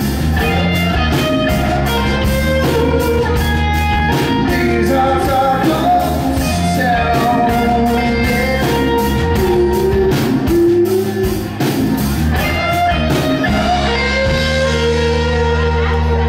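Live rock band playing: acoustic and electric guitars, bass and drums, with a man singing. Near the end the band settles onto a long held chord.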